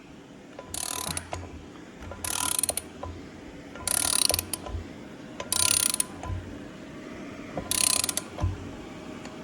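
Snap-on 3/4-inch drive ratchet clicking in five short strokes, about one every one and a half seconds, as bolts are run down snug.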